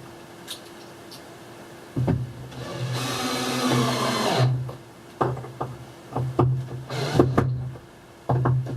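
A cordless drill driving a screw into the wooden camper door for about two seconds, a few seconds in. It is followed by a run of sharp clicks and knocks as the steel catch and latch hardware are handled.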